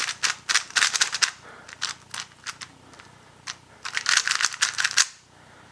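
Magnetic 3x3 speedcube (MoYu Weilong GTS V2 M) being turned fast: two flurries of quick plastic clicks and clacks as the layers snap round, one in the first second or so and another near the end, with a few scattered clicks between.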